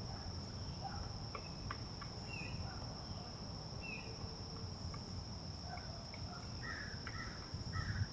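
Steady, high-pitched insect chorus: one continuous buzz that never lets up, with a few short chirps scattered through it.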